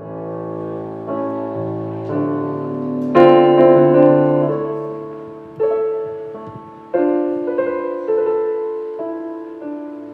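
Slow piano music starting suddenly from silence: sustained chords struck every second or two, each left to ring and fade.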